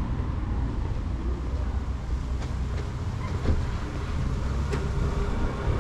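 Street ambience heard while walking: a steady low rumble of wind on the microphone mixed with distant traffic, with a few faint clicks.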